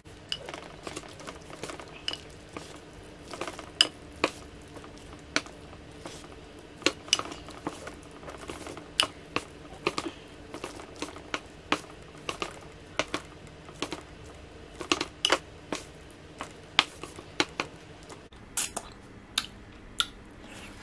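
Chopsticks stirring sauced instant noodles in a small food container: irregular sharp clicks and taps against the container, sometimes several a second.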